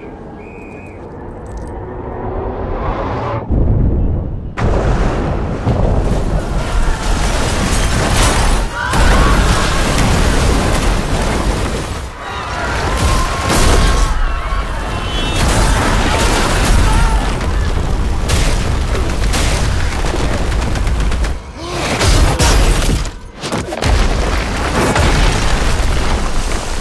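Action-film soundtrack of a superhero fight: repeated deep booms and crashes of destruction, mixed with music and people's voices, broken by a few sudden short cut-offs.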